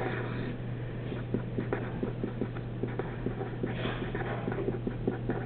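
Pen writing on paper: quick scratching strokes and taps of the tip as numbers are written and a box is drawn, over a steady low hum.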